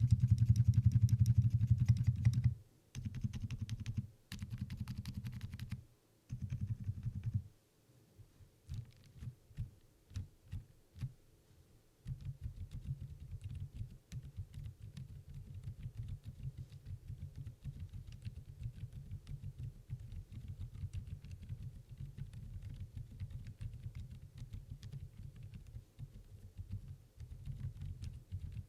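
Typing on a Redbean The Better A1 mechanical keyboard with silent Outemu Lime switches, giving soft, muted key clacks. Several quick bursts of fast typing with short pauses come first, then a few separate key presses, then steady continuous typing from about twelve seconds in.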